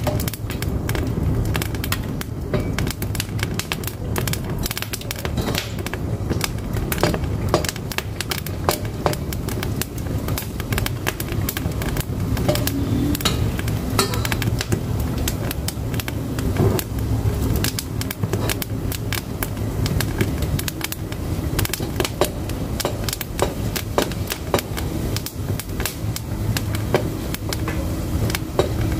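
Firewood burning in a wood-fired cookstove, crackling with frequent irregular sharp pops over a steady low rumble of the fire.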